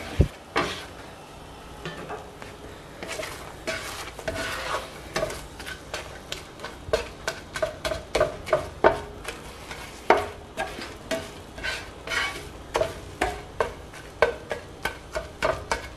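Egg whites being scrambled in a nonstick frying pan: a spatula scraping and tapping across the pan in quick, irregular strokes, over a faint sizzle of the eggs cooking.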